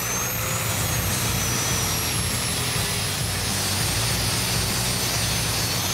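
Power grinder spinning up with a rising whine, then grinding metal smooth, its pitch sagging slowly as it is held against the metal.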